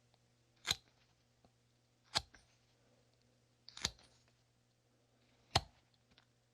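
Carving knife slicing facets off a basswood block: four short, crisp cuts through the wood, about one and a half seconds apart.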